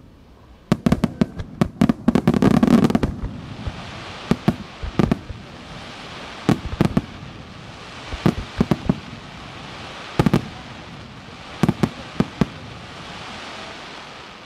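Japanese fireworks starmine barrage. A rapid run of sharp shell bursts comes in the first few seconds and is the loudest part. Then clusters of booms follow every second or two over a steady hiss, which thins out near the end.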